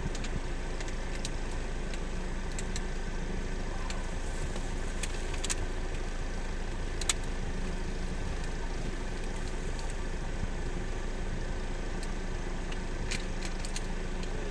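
A motor running steadily with an even hum, with a few faint sharp clicks about five, seven and thirteen seconds in.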